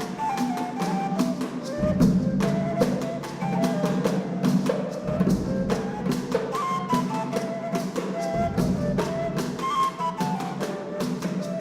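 Instrumental cumbia: a single high melody line stepping up and down over a steady, quick clicking percussion rhythm and low drum strokes that drop out and come back.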